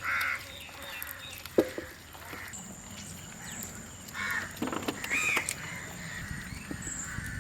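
Crows cawing a few times, with short harsh calls at the start and again around the middle. There is a single sharp knock about a second and a half in, and a thin steady high whine underneath.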